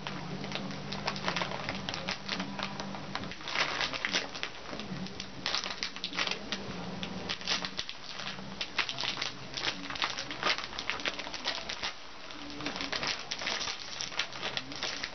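Crinkly wrapper of a roll of cookies being handled and torn open, giving a stream of irregular crackles. A low hum comes and goes underneath.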